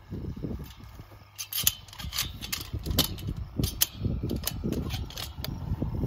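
Tall weeds being pulled by gloved hands from around a fence post: leafy rustling with a quick run of sharp snaps and clicks, thickest from about a second and a half in to near the end.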